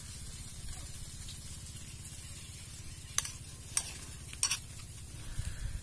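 A metal spoon stirring through coconut-milk stonefish stew in a plate, clinking sharply against the plate three times in the second half, over a steady low background rumble.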